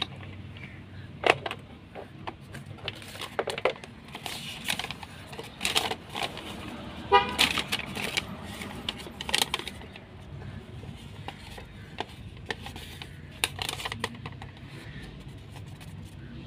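Handling noise from unpacking a cordless screwdriver kit: clicks of tools and the plastic case, then rustling as a paper instruction leaflet is unfolded, over a steady low traffic rumble. A brief vehicle horn toots about seven seconds in.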